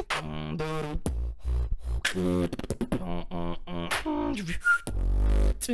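Solo beatboxing into a handheld recorder's microphone: pitched vocal bass and melody tones that step and slide between notes, with sharp clicking drum sounds between them and a deep low bass note near the end.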